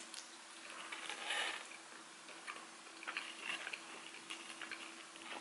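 Faint chewing of a mouthful of pizza, with scattered soft mouth clicks and a louder stretch about a second in.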